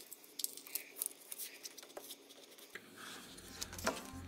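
Scissors snipping through peel-and-stick wallpaper, a series of short irregular crisp cuts mixed with the paper rustling as it is trimmed into a corner.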